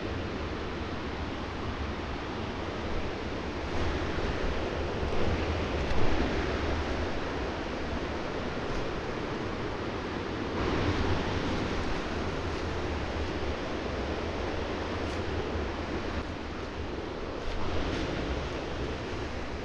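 Wind buffeting the microphone over a steady rushing outdoor noise, with a few louder gusts.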